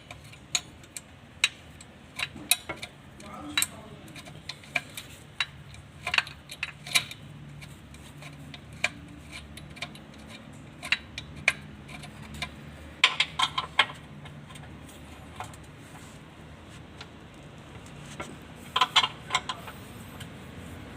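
Metal hand tools clinking and tapping in scattered sharp clicks, with quick runs of clinks about two-thirds of the way through and again near the end, over a low steady hum.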